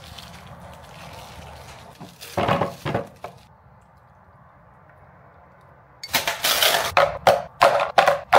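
Frozen papaya chunks knocking into a plastic blender jar, then, after a quiet stretch, a quick run of clicks and clunks as ice cubes are cracked out of a plastic tray and dropped into the jar.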